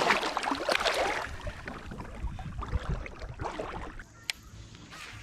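Water splashing and sloshing against the side of a kayak, loudest in the first second and fading away, with a couple of sharp clicks near the end.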